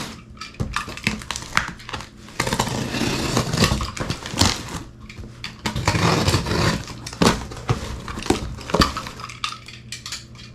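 Cardboard shipping box being opened and handled: irregular scraping and rustling of cardboard and packing paper, with a few sharp knocks.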